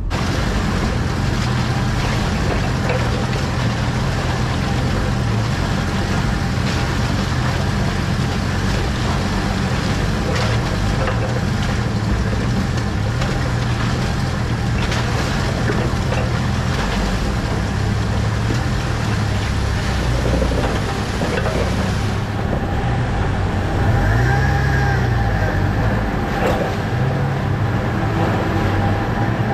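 Jeep Wrangler TJ engine running at low speed while crawling a rocky trail, tyres grinding over stones, with scattered knocks and rattles from the open-top body. The engine revs up briefly a couple of times in the later part.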